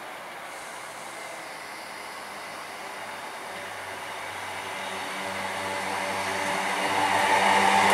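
BREL Class 318 electric multiple unit approaching, a hum of several steady tones over a rushing rumble, growing steadily louder as it draws near.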